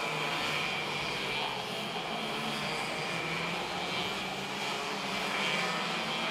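Several two-stroke racing kart engines buzzing at high revs as the karts lap the track, their pitches wavering slightly as they pass.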